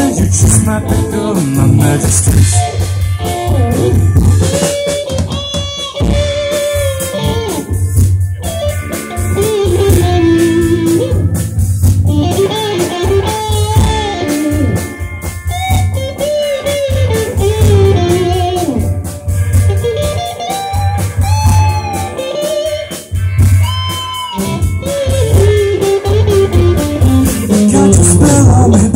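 Live band playing amplified through PA speakers: drum kit, electric guitars and bass guitar, with a bending melody line over a steady beat.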